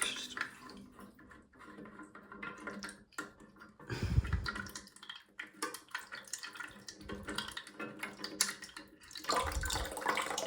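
Water dripping and trickling inside a toilet cistern, with small clicks and knocks from handling the plastic fill valve. There are two dull thumps, about four seconds in and near the end.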